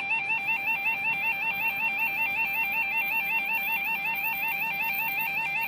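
Level crossing audible warning alarm: an electronic two-tone yodel that flips rapidly and evenly between a low and a high pitch, sounding steadily while the barriers are down.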